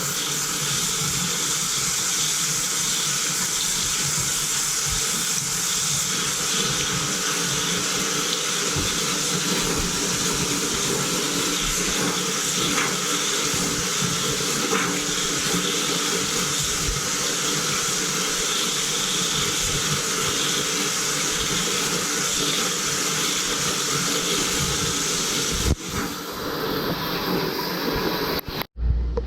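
Water rushing steadily through the plumbing as the water heater tank is refilled, pushing trapped air out of the tank. The steady rush breaks off suddenly near the end.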